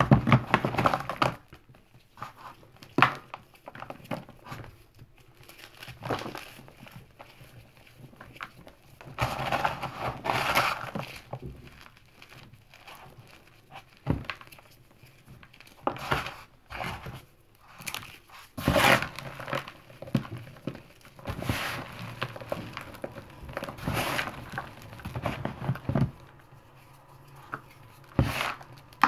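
Hands crumbling and squeezing chunks of gym chalk mixed with cornstarch: an irregular run of soft crunches and crumbles with a few sharp snaps.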